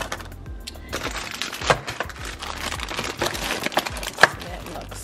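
Plastic snack wrappers crinkling, with small knocks as packets are pushed into a clear plastic organiser bin. Two sharper clicks stand out, one a little under two seconds in and a louder one near the end.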